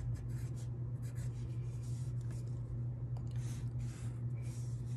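Pencil writing and drawing on paper: a run of short, scratchy strokes as letters and a line are drawn, over a steady low hum.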